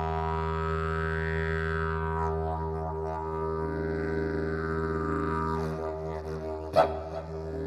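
Background music: a didgeridoo droning on a low E, its overtones sweeping up and down. A single sharp click sounds near the end.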